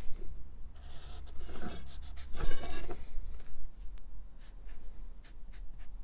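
Felt-tip marker scratching on paper in short strokes, ruling a line and then writing letters.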